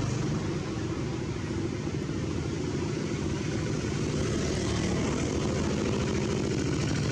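An engine running steadily: a low, even droning hum with a hiss of noise above it.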